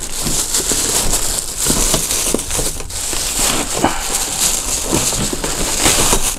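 Thin plastic bag crinkling and crackling as it is ripped open and pulled off a tub.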